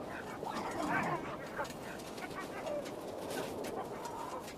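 Animal calls: short squeals that rise and fall in pitch, over a steady background hiss.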